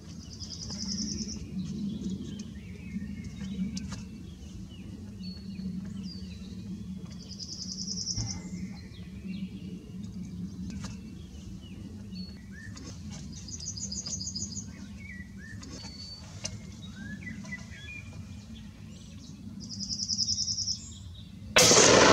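Birds singing, one repeating a short buzzy high trill every six seconds or so, over a steady low hum. At the very end a single rifle shot from a Merkel Helix goes off, far louder than everything before it.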